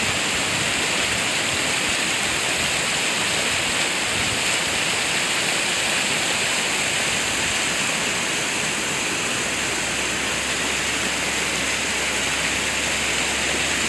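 Swollen, muddy floodwater rushing and churning down a river channel: a steady, even rush of water while the flood is still rising. It is a rain-fed flood, a rain lahar, which the filmer takes for local runoff rather than a lahar from Semeru.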